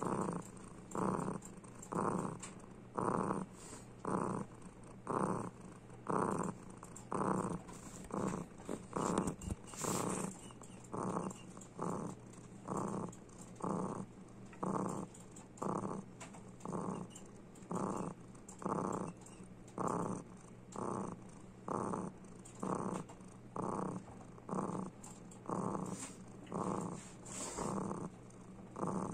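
A white odd-eyed short-tailed cat purring close up, a clear, contented purr that pulses with each breath, about three pulses every two seconds.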